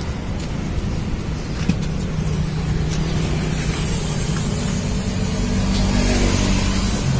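An engine running steadily with a low hum that swells a little louder about five seconds in.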